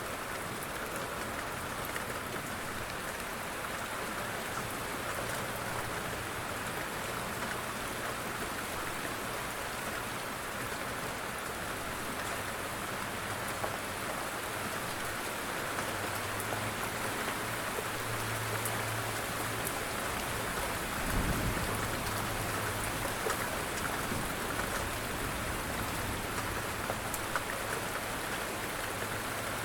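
Steady light rain falling, a continuous hiss with scattered patter of individual drops. About 21 seconds in there is one brief low thump.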